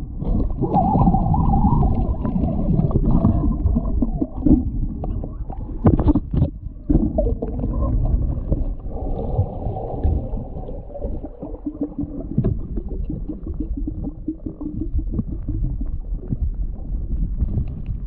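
Muffled underwater rumbling and gurgling, recorded through a submerged GoPro's housing, with a few sharp knocks about six seconds in.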